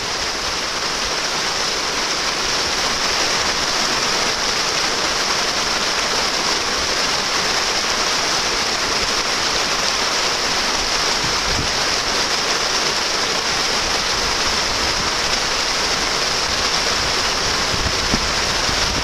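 Shallow river riffle: fast water rushing steadily over rocks.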